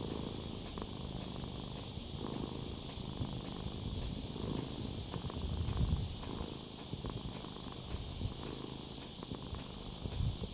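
Domestic cat purring, a continuous low pulsing rumble that grows a little louder around the middle.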